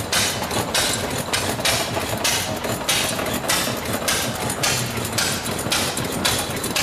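Antique stationary engine running slowly, with a regular clattering beat of about three strokes a second.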